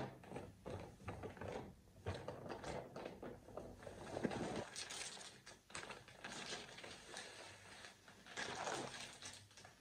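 Clear plastic zip-lock bag rustling and crinkling in short, irregular spurts as it is pulled open by hand and a wig is drawn out of it.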